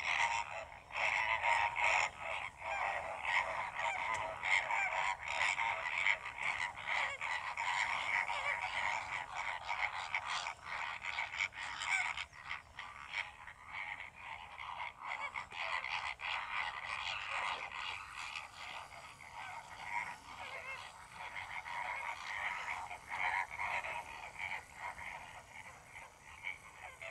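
A flock of greater flamingos calling: a dense, continuous chatter of many short overlapping croaking calls, a little quieter in the second half.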